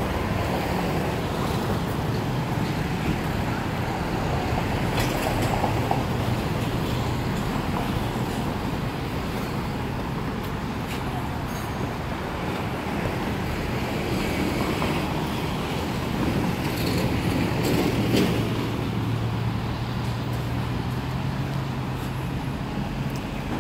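Steady road traffic noise from cars and motorbikes on the adjacent road, with a low engine drone from about two-thirds of the way in.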